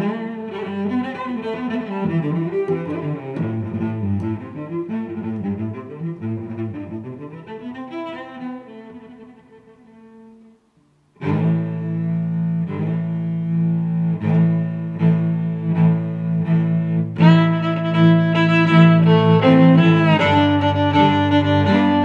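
Background music of bowed strings with a low cello line, sustained notes. It fades out about ten seconds in, stops briefly, then starts again about a second later and grows louder near the end.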